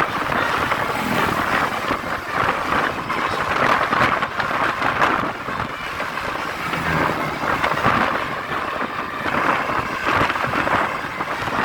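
Roadside traffic noise from passing road vehicles, with wind buffeting the microphone; no horn tune is clearly heard.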